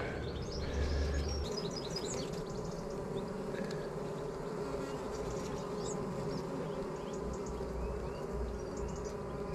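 Many honeybees buzzing around an opened hive, a steady, even hum.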